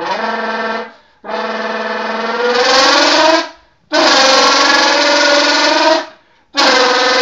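A person imitating a V10 engine by buzzing with the mouth into a can, in four revving notes split by short pauses, the second rising in pitch before it cuts off.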